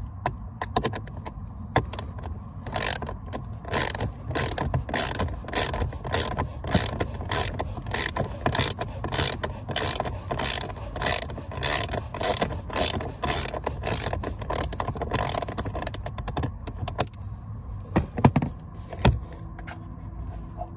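Ratchet wrench clicking in steady strokes, about two a second, as the last screw holding the blower motor is backed out. The clicking thins out after about 16 s, and a couple of knocks follow near the end.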